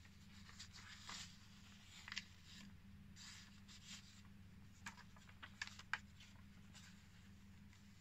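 Soft paper rustles and light taps from the pages of a handmade paper journal and a paper tag being handled, over a faint steady low hum. The sharpest handling noises come about a second in, at two seconds, and in a cluster around five to six seconds.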